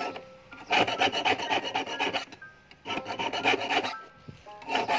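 Hand file rasping on a steel fish-hook wire clamped in a wooden block: three bursts of rapid back-and-forth strokes, each about a second long, with short pauses between, the last starting near the end.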